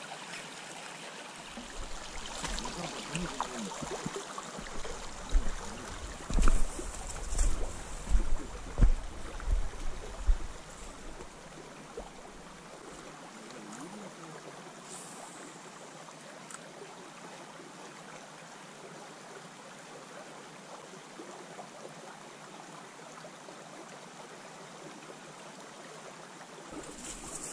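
Shallow river water running over a stony riffle. A series of low thumps about five to ten seconds in is the loudest part, and the water noise is quieter and steadier after about twelve seconds.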